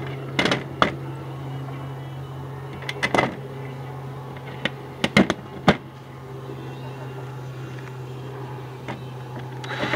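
Handling sounds from a metal window frame and screws being set against wooden siding: a few sharp clicks and knocks in small clusters, about half a second in, around three seconds and between five and six seconds, over a steady low hum. A short rush of noise comes near the end.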